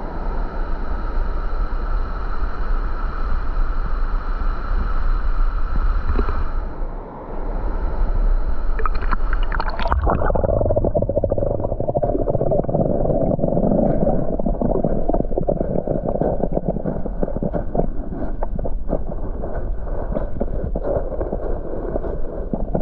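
Steady rushing of falling water. For about the first ten seconds a set of faint steady tones rides over it; then the sound turns duller, with small crackles through it.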